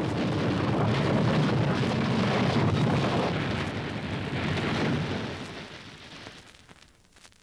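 Steam locomotive wrapped in its own steam, giving a steady rushing hiss over a low rumble that fades away over the last two seconds.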